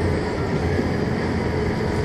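Detroit Diesel Series 60 six-cylinder diesel engine of a 2001 MCI D4000 coach running steadily under way.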